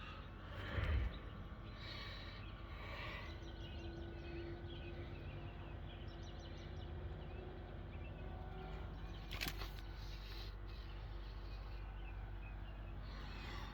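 Ford 7.3-litre V8 diesel engine idling roughly after sitting unused, a steady low pulsing rumble. There is a thump about a second in and a sharp click about halfway through.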